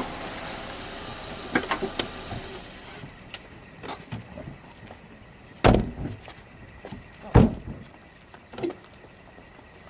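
Volkswagen New Beetle running as it pulls in and stops, with a few light clicks, its engine noise falling away about three seconds in. Then its doors slam shut twice, a second and a half apart, with a smaller knock after.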